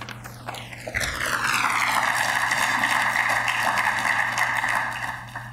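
Audience applauding: a dense patter that starts about a second in, holds steady and fades out near the end.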